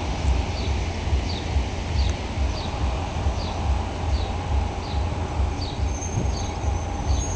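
A passenger train moving slowly through a railway station, heard from a distance as a low rumble. Over it, a bird repeats a short, high, falling chirp about every two-thirds of a second.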